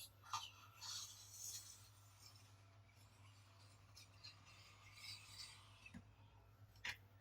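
Near silence with faint scraping and rubbing of toy cars being handled, and a single sharp click near the end, over a low steady hum.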